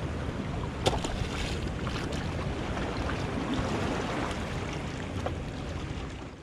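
Steady noise of wind and water around a fishing boat at sea, with a few light clicks or knocks, fading out near the end.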